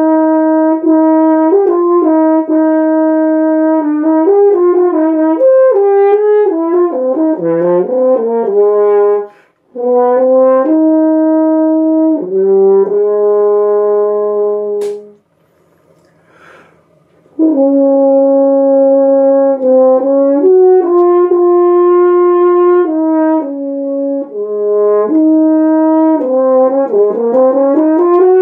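French horn played solo: phrases of held notes joined by quicker stepwise runs, with a short break for breath about a third of the way in. A longer gap about halfway starts with a sharp click.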